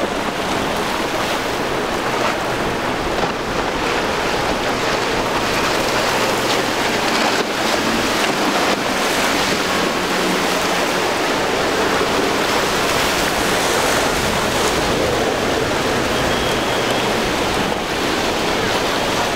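Rough ocean surf and rushing, churning water with wind on the microphone, and the outboard motors of center-console boats running through the waves.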